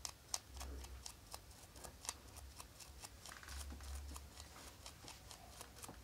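Stiff nylon brush scrubbing a Nokia button phone's circuit board around the charging port, the bristles flicking off the components in a quick, irregular run of light ticks, several a second. It is the board being cleaned of flux and debris after the port was resoldered.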